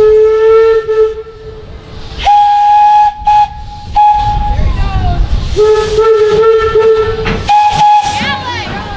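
Steam whistle of a steam locomotive rebuilt as a Thomas the Tank Engine replica, blown in four long blasts that alternate between a lower and a higher note, with steam hissing between them.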